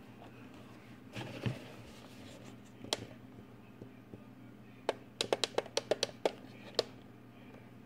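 Handling of FPV goggles: a rustle, a single click, then a quick run of about ten small sharp clicks and taps over about two seconds, over a faint steady hum.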